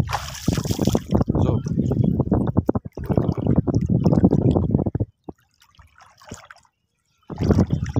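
Shallow river water splashing and sloshing as a gill net is pulled up and handled by hand, with many short splashes. It drops out to near silence for about two seconds before the splashing starts again near the end.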